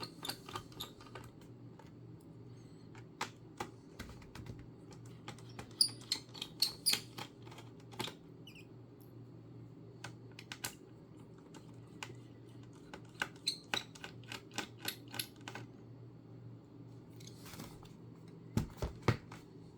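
Irregular small clicks and taps of a screwdriver working Phillips screws out of a laptop's plastic base, with screws being handled, over a faint steady low hum. A few louder clicks come near the end.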